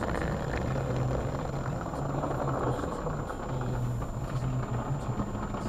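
Automatic car wash spraying water and foam over a car's windshield, heard from inside the car as a steady rushing wash with a low mechanical hum that comes and goes.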